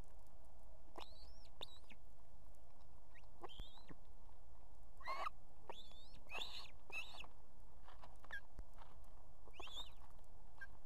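Ospreys at the nest giving short, sharp whistled chirps, about eight scattered calls, each sweeping quickly up in pitch, while a chick is fed fish.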